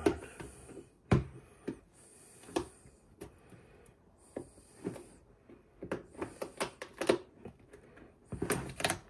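Scissors clicking in a series of short snips at a flexible LED light strip that resists being cut, with scattered taps and knocks from handling the plastic bin.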